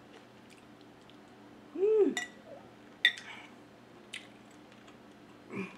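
Close-miked eating sounds: soup being chewed, with a short hummed "mm" that rises and falls about two seconds in, and a few sharp clicks spread through the rest.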